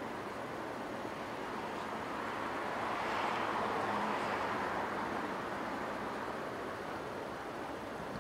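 Steady outdoor traffic noise that swells for a couple of seconds about three seconds in, as a vehicle passes, then settles back.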